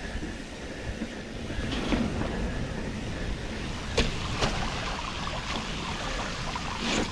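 Titanium-frame mountain bike rolling over concrete with a steady rush of noise on the camera microphone, broken by a few sharp clacks and rattles of the bike over bumps, the loudest about four seconds in.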